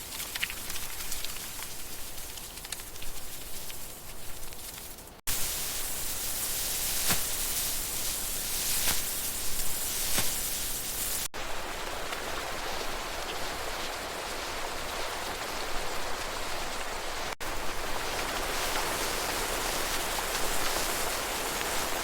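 Steady outdoor hiss in sections that switch abruptly about every six seconds. The section from about five seconds in is brighter and louder, with scattered faint ticks.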